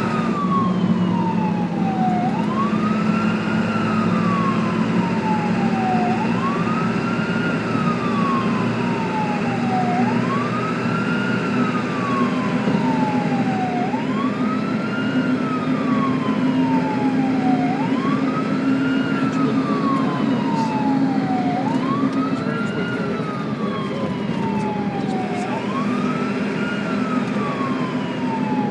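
Ambulance siren on a slow wail: each cycle sweeps quickly up in pitch and then glides more slowly back down, repeating about every four seconds, over a steady low hum.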